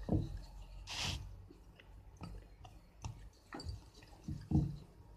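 Scattered soft taps, clicks and squishy thumps of mathri dough discs being handled and pressed on a greased rolling board, with a brief rustling hiss about a second in.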